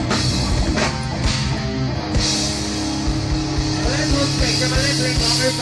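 Rock music with drums and guitar: drum hits through the first two seconds, then held and bending notes.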